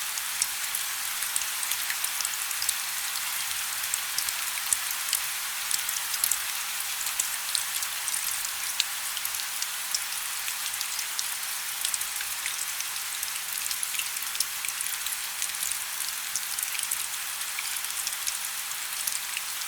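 Wood fire burning in a fireplace: a steady soft hiss with frequent small, sharp crackles and pops from the burning logs.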